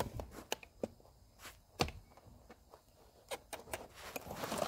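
Light clicks and knocks of plastic parts being handled as a replacement drive-wheel module is worked into a robot mop's housing, with a short scraping rustle near the end.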